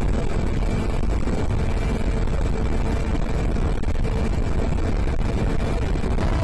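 Steady in-flight noise heard through the onboard camera of an Aggressor FPV flying wing: wind buffeting the microphone, with a faint steady whine from its electric motor and propeller.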